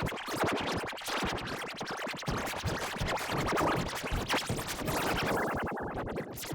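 Electronically processed cartoon soundtrack: music chopped into rapid stutters and scratch-like clicks that run densely throughout, then cut off abruptly at the end.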